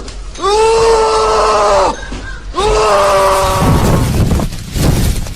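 Two long, high wailing cries, each held for about a second and a half, followed near the end by a rougher, noisier sound.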